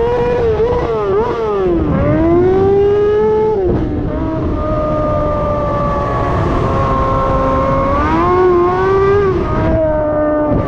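Kawasaki ZX-6R 636 inline-four sport bike engine in an ATV, running hard at high revs. The revs warble quickly at first, then drop sharply and climb again twice. They hold fairly steady for a few seconds, rise, and drop sharply again near the end.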